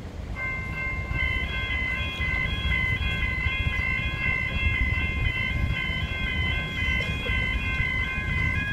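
Railway level crossing warning bells start ringing about a quarter second in, a steady electronic chime with an alternating repeating pattern on top, over a low rumble. The crossing is activating for an approaching train.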